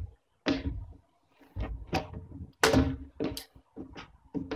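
Irregular hollow thumps and knocks on plastic playground equipment, about six or seven of them with short silent gaps, each leaving a brief hollow ring.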